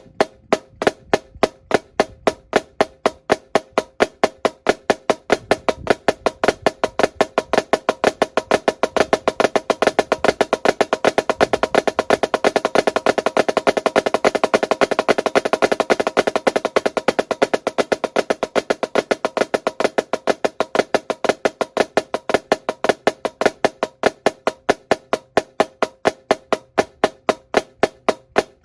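Drumsticks on a drum playing the Swiss Army triplet rudiment: a flam and two strokes per triplet, right-right-left, accented on the right hand. The strokes speed up to a fast roll around the middle, then slow back down.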